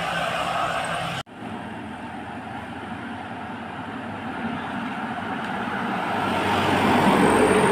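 Road traffic: engine and tyre noise from passing vehicles, cut off abruptly about a second in. Then one vehicle approaches, growing steadily louder. No horn sounds.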